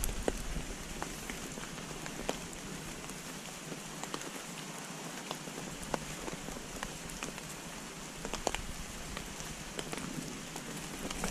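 Light rain: scattered drops ticking irregularly, a few each second, over a steady soft hiss.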